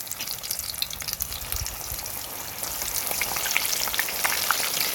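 Floured chicken pieces deep-frying in hot oil, a dense crackling sizzle that grows louder about halfway through.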